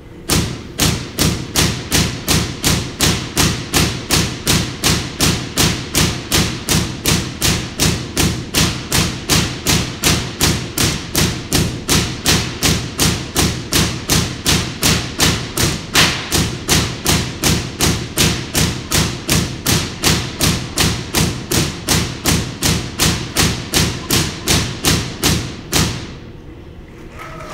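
The world's largest air-insulated Van de Graaff generator throwing a rapid, regular string of loud spark discharges, cracking about two to three times a second. It starts abruptly and stops shortly before the end.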